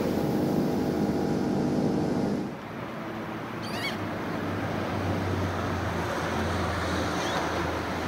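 A sustained chord of steady tones cuts off about two and a half seconds in. It gives way to marina ambience: steady wind and water noise under a low motor hum.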